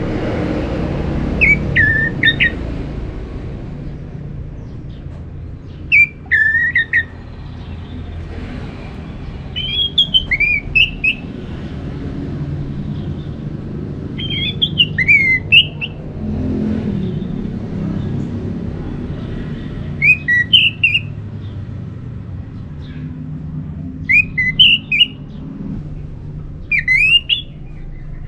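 Orange-headed thrush singing short phrases of quick, squeaky whistled notes, one every three to five seconds, about seven in all, over a steady low rumble.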